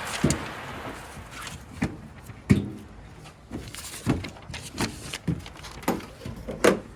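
Irregular clunks and knocks, about eight of them, as the parts of a swing-out truck-bed toolbox are handled and fitted into place.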